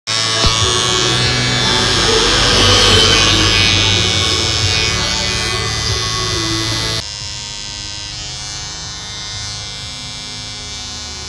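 Electric hair clipper buzzing loudly, then about seven seconds in its buzz abruptly drops to a noticeably quieter, steadier hum.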